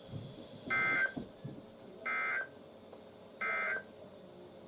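Three short bursts of SAME digital data tones from a weather radio, each about half a second long and a little over a second apart: the end-of-message code that closes an EAS weather alert.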